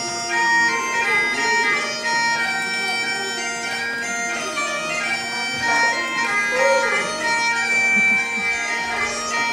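Highland bagpipes playing a dance tune: a quick melody over a steady, unbroken drone.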